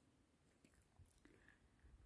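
Near silence, with a few faint short ticks.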